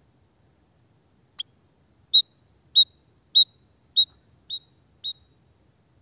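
White-headed munia calling: one short high note, then a run of six short, high chirps evenly spaced a little over half a second apart, the last two fainter.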